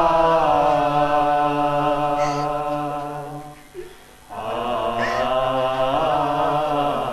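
A Hindi song with a voice holding long, drawn-out notes. The music fades nearly out about four seconds in, then comes back with another held note.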